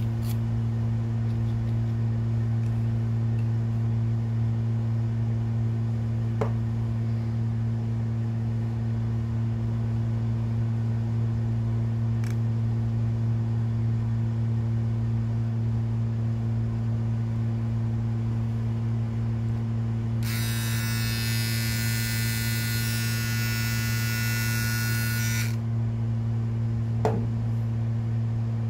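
Steady low electrical hum, unchanging throughout, with a few faint clicks as small plastic packaging is handled. For about five seconds near the end a harsh high hiss joins in.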